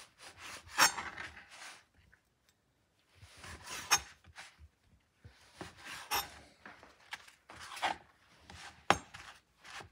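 Kitchen knife cutting the crusts off slices of soft sandwich bread on a cutting board: short rasping strokes through the crust, with a few sharp taps as the blade meets the board.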